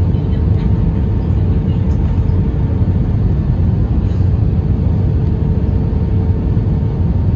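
Airbus A320-214 cabin noise: the steady low rumble of its CFM56 engines and the airflow past the fuselage, with a faint constant tone running through it.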